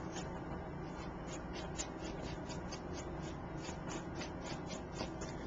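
Chalk ink pad rubbed in quick, even strokes along the edge of a paper card, making faint scuffs about three times a second.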